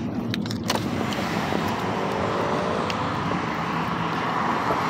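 Steady road and tyre noise of a car on a freeway, heard from inside the cabin, with a faint brief whine about two seconds in.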